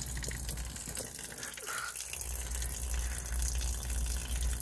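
Water pouring and splashing steadily out of a hole cut in water-logged underfloor insulation, draining the water trapped in it.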